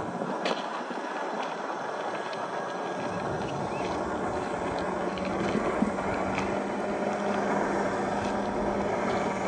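1/10-scale RC crawler on an MST CFX chassis, driven by a 540-size brushed electric motor, running across dirt and gravel and growing gradually louder as it comes closer. A steady hum comes in a little after halfway.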